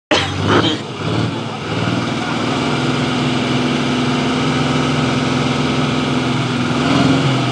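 Army truck's engine running steadily at a constant pitch, with people's voices over it in the first second or so.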